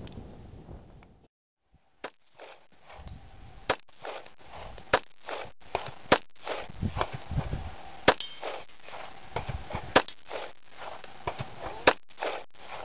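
A string of about seven shots from a Smith & Wesson-made Colt-pattern 1911 pistol firing smokeless loads, spaced roughly one to two seconds apart. Each shot is a sharp crack. The shots start about two seconds in, after a short stretch of wind noise.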